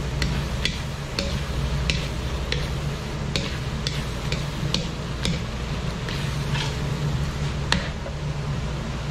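Metal ladle stirring and scraping egg and tomato in an aluminium wok, clicking against the pan one or two times a second, over light sizzling and a steady low hum.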